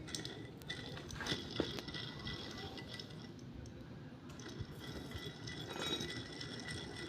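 Light metallic clinks and knocks of tools and engine parts being handled, coming irregularly.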